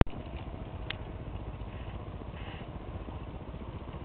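G scale model train running on garden track: a steady low rumble, with one sharp click about a second in.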